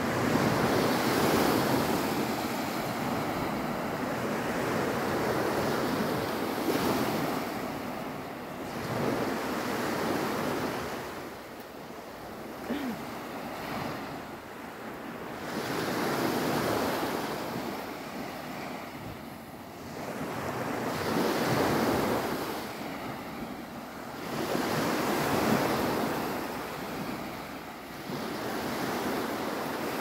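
Small sea waves breaking and washing up a sandy beach, the surf swelling and fading every few seconds.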